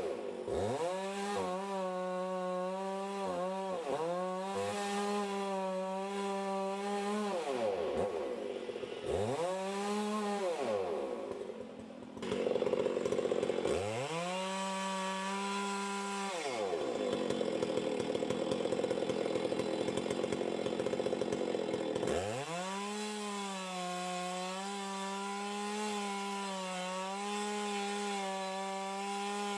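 Two-stroke chainsaw running at high revs, its pitch dipping and recovering several times as it bogs under load in the cut. It is pulled down for two longer stretches about halfway through, then runs steady at high pitch near the end.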